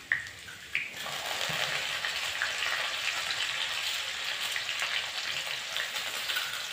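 Chopped onions sizzling steadily in hot oil in a wok on a gas stove, after two sharp clicks in the first second.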